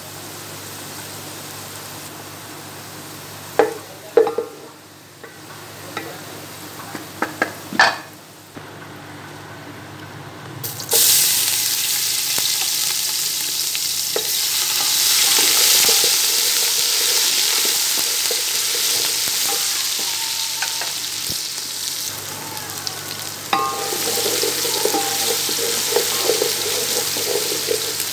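Onions frying in oil in a steel pot, with a spatula clicking against the pot a few times. About eleven seconds in, a paste goes into the hot oil and sets off a sudden loud sizzle that carries on as it is stirred.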